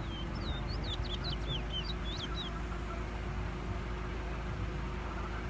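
Caged towa towa (twa-twa seed finch) singing a short phrase of about a dozen quick, high whistled notes that slide up and down, lasting about two seconds near the start.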